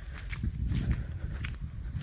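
Footsteps on a forest trail, a few irregular light crackles, over a steady low rumble.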